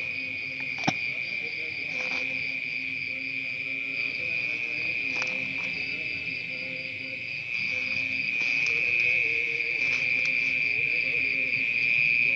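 Crickets chirring in a continuous high-pitched night chorus that grows a little louder about halfway through, with one sharp click about a second in.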